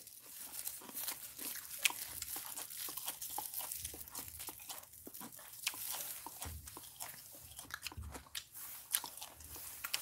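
A person chewing a mouthful of grilled pork belly with kimchi and green onion salad close to the microphone: irregular wet clicks and soft crunches.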